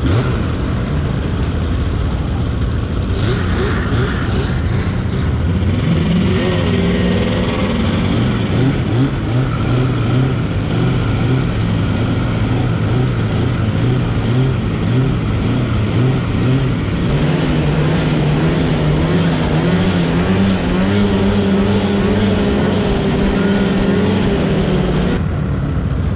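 Snowmobile engines running and throttling up as the sleds pull away over snow. The engine pitch climbs a few seconds in, holds, climbs again past the middle, and drops away near the end.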